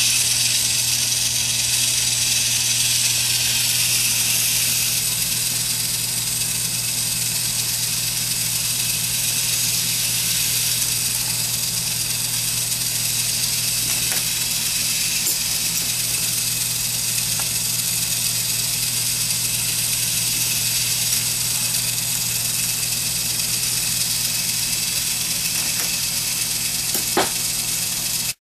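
K'nex ball machine running, its small electric motors driving the lifts with a steady hum and hiss. A few faint clicks come from the moving parts, the clearest near the end. The sound cuts off suddenly.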